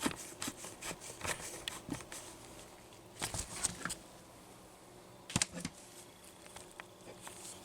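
Handling noise as a hand-held camera is set back onto a tripod: scattered light clicks, taps and rubbing, with a sharper knock about five seconds in.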